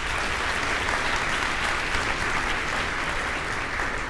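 Audience in a school gym or auditorium applauding steadily, a dense sustained clapping.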